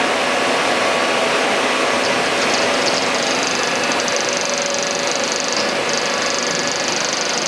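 Steady industrial machinery noise, a dense whirring hum, with a higher fluttering hiss joining about two seconds in.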